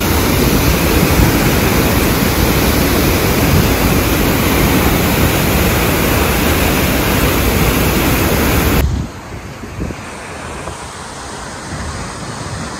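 Water blasting out of a dam's outlet into the river below: a loud, steady rush of spray and whitewater. It cuts off abruptly about nine seconds in, leaving a much fainter hiss.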